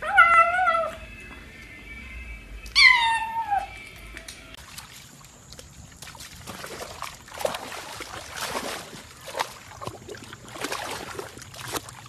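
A cat makes two drawn-out, wavering meows while eating from a steel food bowl: one at the very start and one about three seconds in. From about six seconds in there are irregular splashing and sloshing sounds as a dog paws and wades in muddy water.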